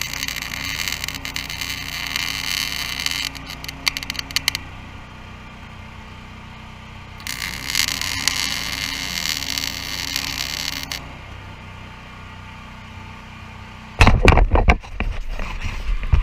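MIG welder arc sizzling on 14-gauge steel C-purlin in two runs: the first ends with a few crackling pops about four seconds in, the second runs from about seven to eleven seconds. A generator hums steadily underneath, and a loud low buffeting comes near the end.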